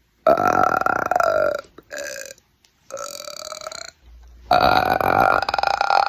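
A person burping deliberately, four times in a row: a long burp, two shorter ones, then another long, loud one near the end.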